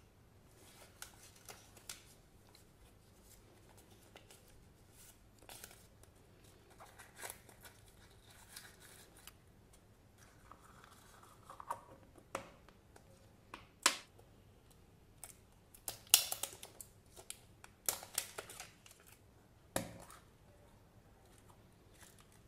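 Hands handling a paper sticker sheet, then pulling apart a plastic surprise-egg capsule: soft paper rustling, then a run of sharp plastic clicks and snaps, loudest in the second half.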